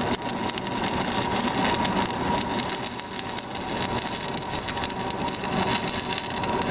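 Arc welding on steel railroad-spike pieces: a steady, dense crackle and hiss from the welding arc.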